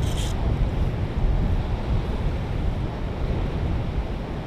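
Wind buffeting the microphone on an open boat on a river: a gusty low rumble with no clear tone.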